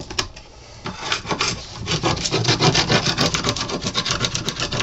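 Sharp steel hive tool scraping old paint and grime off the end joint of a wooden beehive super, cleaning the joint so glue will bond. Quick back-and-forth strokes, about five or six a second, start about a second in and get louder from about two seconds.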